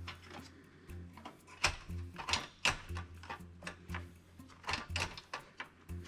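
Irregular plastic and sheet-metal clicks and knocks from the blue plastic drive caddy and steel chassis of a Dell Optiplex 7050 small-form-factor PC being handled, over background music with a steady bass line.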